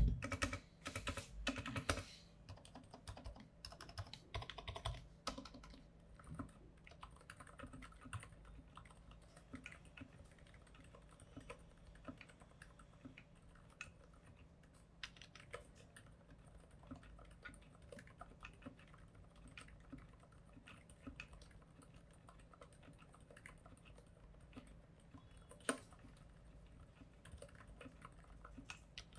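Typing on an IQUNIX F97 Typing Lab mechanical keyboard with Cherry MX Silent Red switches: a soft, quiet, steady run of keystrokes. It opens with a brief burst of louder key clicks and has one sharper click near the end.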